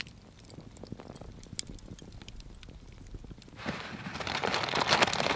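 Campfire embers crackling and ticking faintly in sparse sharp pops. About three and a half seconds in, a louder rustle of fabric and gear builds as a backpack is rummaged through.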